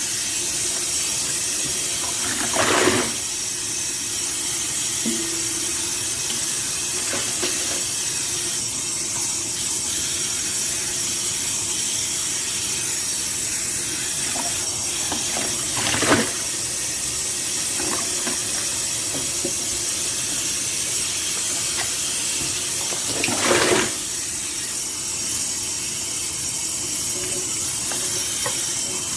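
Water running steadily from a tap, with three brief louder splashes about three, sixteen and twenty-four seconds in.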